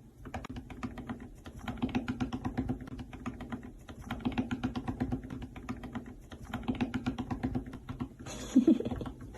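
Rapid light clicking in runs of a second or two with short pauses between them, and a brief louder sound near the end.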